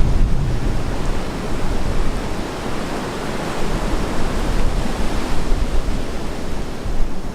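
Wind blowing over the microphone: a loud, rushing noise with a low rumble that comes and goes in gusts.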